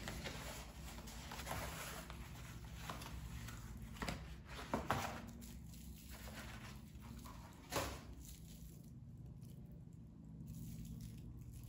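Packing paper and wrapping being handled and unrolled by hand, rustling softly, with a few sharper crinkles about four to five seconds in and another near eight seconds, then quieter.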